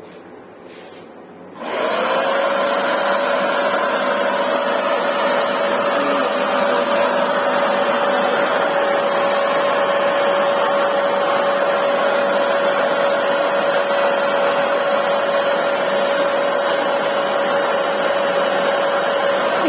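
Russell Taylors CW100 carpet washer switched on about two seconds in: its suction motor comes up to speed almost at once and runs steadily, a constant whine over a rushing of air.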